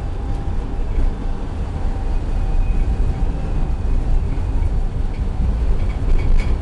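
Ganz KCSV articulated tram running along the street, heard from inside the car: a steady low rumble with a faint whine above it and a few light clicks and rattles.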